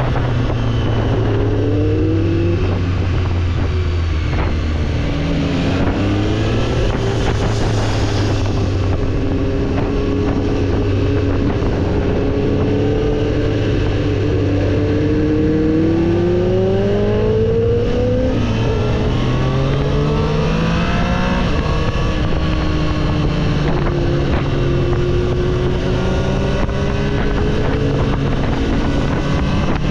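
Triumph Street Triple 765 RS's inline three-cylinder engine under way, rising in pitch several times as it accelerates through the revs, with steadier cruising stretches between. Wind rush runs underneath.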